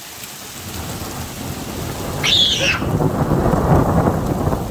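Thunder rumbling in after a lightning flash, building over the first few seconds and loudest near the end, over the steady patter of falling hail. A brief high-pitched cry about two seconds in.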